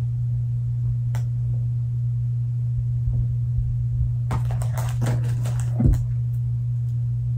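A cluster of light clicks and rustles from plastic cookie trays and icing tubes being handled, a little past the middle, over a steady low hum.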